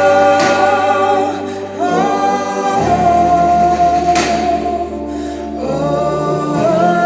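Praise and worship band playing: several voices holding long sung notes over sustained low keyboard and bass tones, the chord changing a few times.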